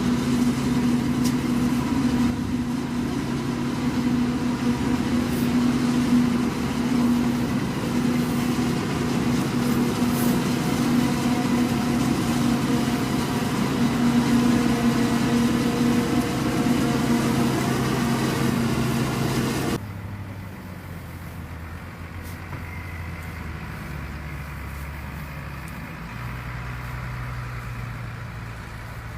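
Heavy farm machinery of a maize-chopping (forage harvesting) operation running steadily with a constant hum. About twenty seconds in it cuts off suddenly to a quieter, lower engine sound whose pitch steps up and down.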